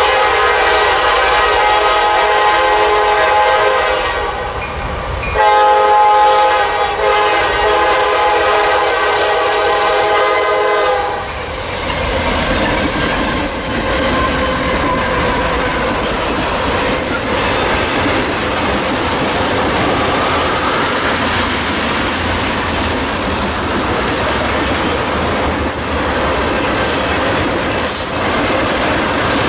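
Horn of the lead Norfolk Southern SD60I diesel locomotive sounding for a grade crossing: a long blast that ends about four seconds in, then a second long blast until about eleven seconds. After that the train passes close by: the BNSF ES44 locomotives' diesel engines, then loaded ethanol tank cars rolling past with their wheels clacking over the rail joints.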